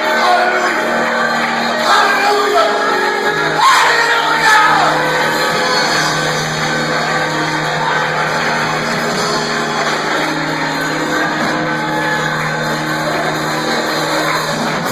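Church music with steady held chords, and voices shouting and singing over it, loudest in the first few seconds.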